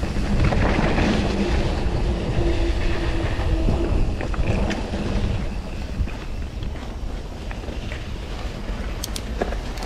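Mountain bike rolling fast along a dirt singletrack, with wind buffeting the microphone over the steady rumble of tyres on the trail. A few sharp clicks and rattles from the bike come near the middle and again near the end.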